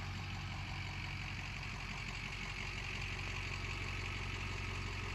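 Pickup truck's turbo-diesel engine idling steadily, a constant low hum with no change in pace.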